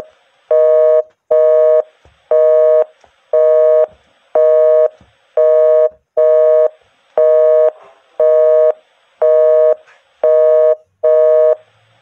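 Telephone busy signal: a steady two-tone beep, half a second on and half a second off, repeating about once a second.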